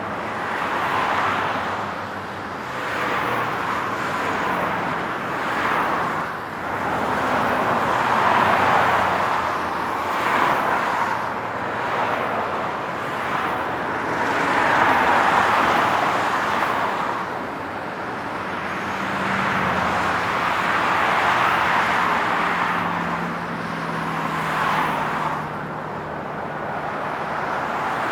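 Steady highway traffic: a continuous tyre and engine hiss that swells and fades every few seconds as vehicles pass, with a lower engine drone from a heavier vehicle in the second half.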